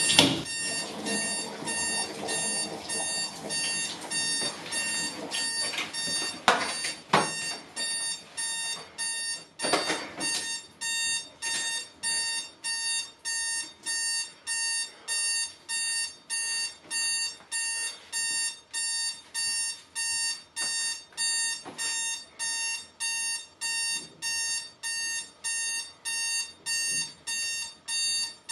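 Digital alarm clock beeping in a steady, even rhythm, about one and a half beeps a second. A few louder rustling noises come in the first ten seconds.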